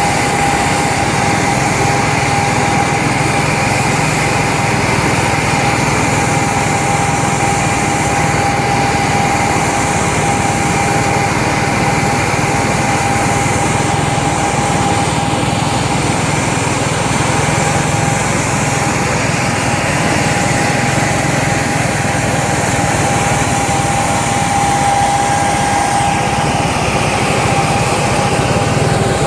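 Small engine running steadily at an even speed, with a constant high whine.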